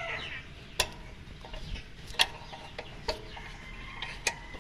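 A hand wrench clinking on metal against the AC compressor's clutch pulley bolt: a few sharp, irregular clicks, about four of them loud, spread over four seconds. A rooster's crow trails off right at the start, and a chicken clucks faintly.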